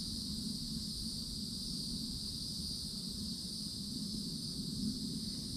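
Steady chorus of summer insects, a constant high-pitched buzz, over a low steady hum.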